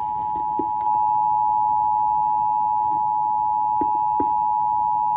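Emergency Alert System attention signal: the two-tone 853 Hz and 960 Hz alarm sounding steadily over an FM radio broadcast, announcing the tornado warning that follows.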